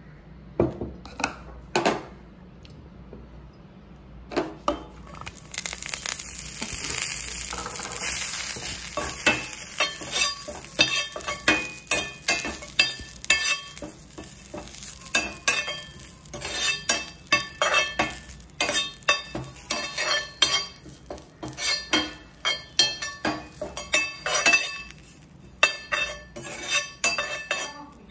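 Curry leaves sizzling in a hot black kadai while a metal slotted spoon stirs them, scraping and clinking against the pan in quick, irregular strokes. The sizzle rises about five seconds in, and a couple of knocks come near the start.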